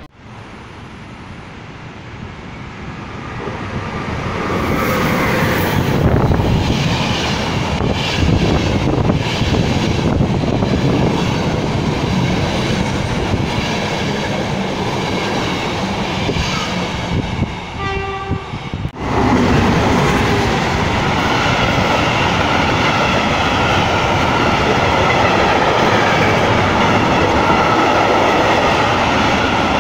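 A passenger train comes in and passes close by, its sound growing louder over the first few seconds into the rumble and clatter of coaches going past. A short horn-like tone sounds about two-thirds of the way through. The sound then cuts to a long freight train of open wagons rolling past, with wheel clatter and steady high-pitched tones from the wheels.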